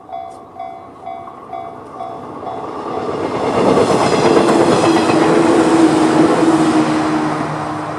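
A 115-series electric train passing over a level crossing. At the start, the crossing's electronic warning bell rings at about two to three dings a second. From about three seconds in the train noise builds, is loudest for several seconds and drowns out the bell, then begins to ease off near the end.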